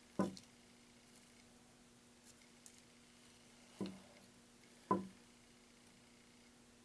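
Three light knocks with a few tiny clicks between them, from metal tweezers and fingers handling a plastic model car body in its clamp stand while tape is laid on. A faint steady hum underneath.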